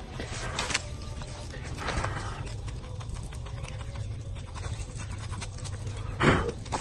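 Knife blade scraping and cutting at a small lizard held in the hand, soft scratchy strokes over a steady low background rumble. A brief louder sound stands out near the end.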